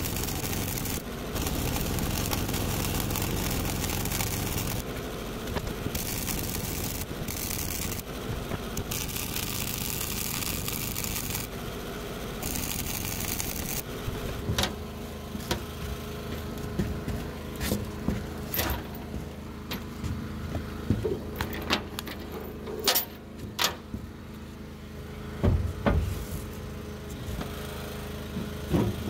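A vehicle engine running. For the first half it is a rushing, noisy run; from about halfway it settles to a steady idle with a string of sharp clicks and knocks over it.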